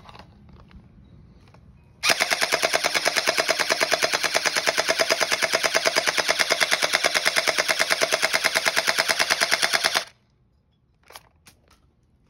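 Glock gel blaster firing full-auto in one continuous burst of about eight seconds, a rapid, even rattle of shots that starts about two seconds in and stops suddenly. A few separate clicks follow.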